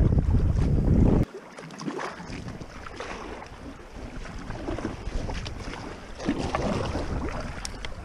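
Wind rumbling on the microphone, cutting off suddenly about a second in; then a double-bladed paddle dipping and splashing in the water of a packraft, with water dripping off the blades between strokes.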